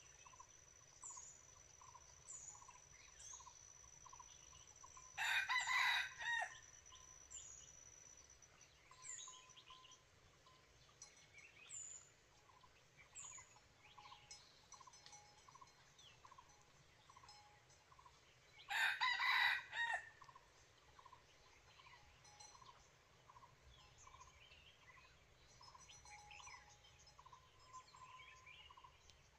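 Red junglefowl rooster crowing twice, about five seconds in and again some thirteen seconds later, each a short crow of a second or so. Faint chirps of small birds run in between.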